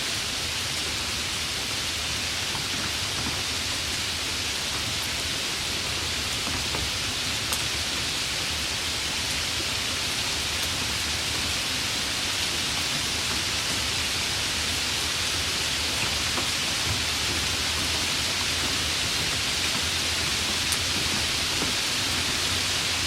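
Steady rainfall with scattered single drip clicks.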